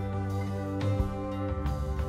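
Instrumental background music with plucked guitar notes.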